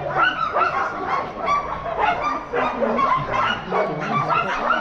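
Many huskies barking and yipping at once, their calls overlapping in an unbroken chorus.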